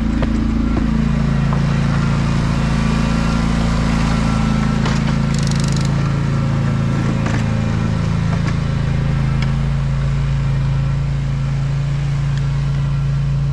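John Deere Z530R zero-turn mower's engine running at a steady speed, a constant low hum. A brief hiss about five seconds in.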